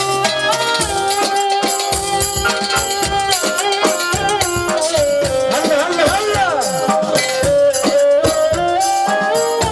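Egyptian sha'bi wedding music, instrumental: a held melody line stepping between notes over a fast drum and shaker rhythm, with a run of bending, swooping notes around the middle.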